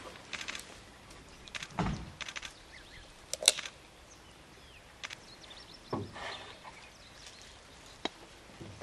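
Scattered sharp clicks and knocks, the loudest about three and a half seconds in, over quiet outdoor ambience with a few faint high chirps.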